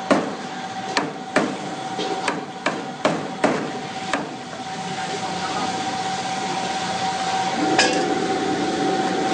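Cleaver chopping frogs on a chopping block: about eight sharp, irregularly spaced chops in the first four seconds, then one more near the end.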